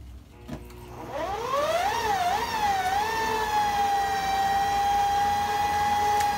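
Electric stand mixer starting up: after a click, its motor whine rises steeply in pitch as it comes up to speed, wavers up and down, then settles into a steady high whine.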